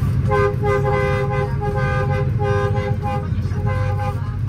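A vehicle horn tooted in a quick run of about eight short blasts, roughly two a second, over a heavy diesel truck engine running underneath.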